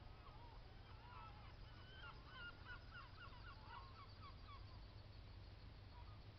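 Faint honking calls of a distant flock of waterbirds on the water, a rapid run of short calls about two to four seconds in, thinning out near the end.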